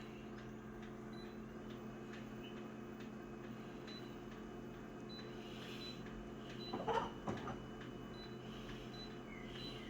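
A small machine running steadily, a hum with faint high ticks, with a short rustling knock about seven seconds in.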